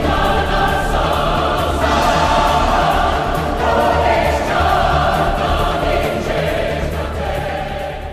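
Choral music: a choir singing held notes over a steady low bass, fading out near the end.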